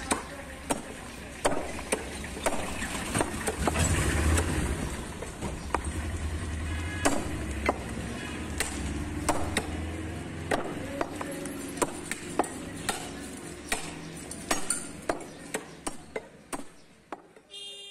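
Heavy curved butcher's cleaver chopping beef on a thick round wooden chopping block: sharp, irregular strikes about one or two a second, coming quicker near the end, over a steady low background rumble.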